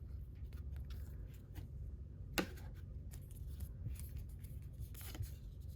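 Faint rustling and light clicks of baseball cards being handled and flipped through, with one sharper click about two and a half seconds in, over a low steady room hum.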